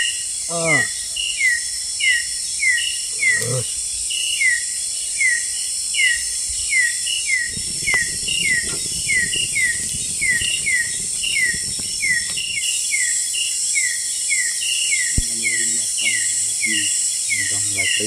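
Forest night chorus: a steady high-pitched insect drone with a short falling chirp repeated nearly twice a second. A low rushing noise rises for several seconds in the middle.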